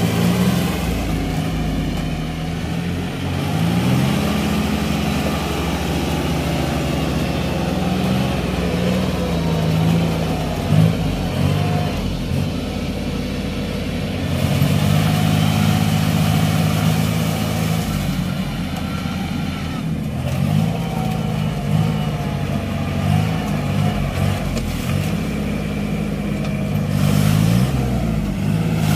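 Kubota L4018 diesel tractor engine running under load while pulling a rotary tiller through wet paddy mud. Its engine speed rises and falls several times as the work goes on.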